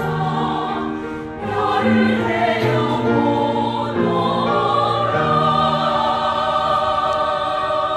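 A choir singing a slow piece in harmony, moving through sustained chords and ending on a long held chord.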